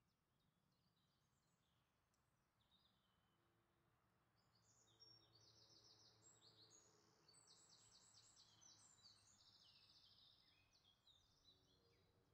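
Near silence with faint songbird calls: high chirps and quick trills, busiest in the middle, over a low hum.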